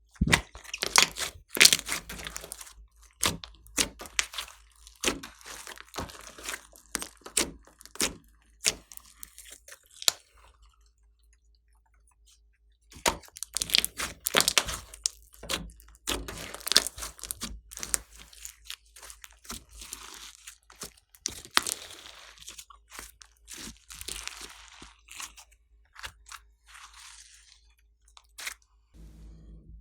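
Glossy slime being squeezed, poked and stretched by hand, giving off dense, irregular crackling and popping clicks. The sound comes in two stretches with a short quiet gap between them, about ten seconds in.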